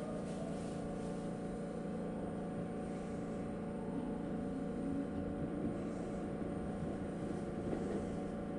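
Tokyu Oimachi Line electric commuter train running, heard from inside the front car: a steady rumble and hum of the train moving along the rails.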